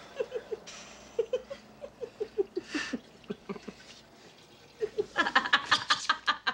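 A person laughing in runs of short ha-ha bursts, twice, the second run louder.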